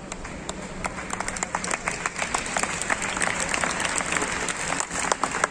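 Audience applauding: a few scattered claps at first, thickening into steady applause about a second in.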